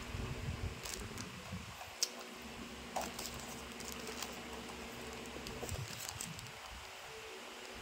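Crinkling and rustling of a foil-lined paper rice wrapper being unwrapped and folded by hand, with scattered small crackles and a couple of sharper clicks.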